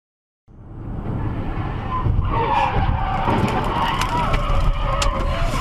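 Car tires squealing as a vehicle skids sideways across the highway, over steady road noise, starting abruptly about half a second in. A few sharp clacks of impact come near the end.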